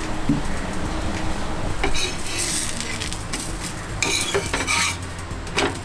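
Metal spatula scraping and clinking against a hot tawa griddle while a besan koki flatbread is turned and pressed, in several short strokes over the second half.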